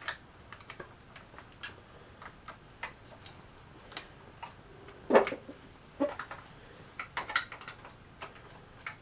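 Scattered light clicks and knocks from a Crosman Air17 pellet rifle being handled, its parts being worked by hand, with a sharper click about five seconds in and a quick run of clicks a second or two later.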